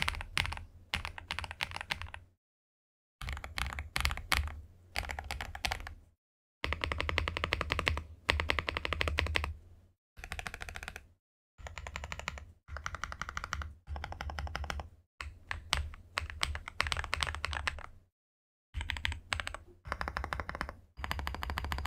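Typing sound test on a Weikav WK68 65% gasket-mount mechanical keyboard with its stock keycaps and switches: fast runs of crisp keystroke clacks, each lasting a second or two, with brief silent breaks between them.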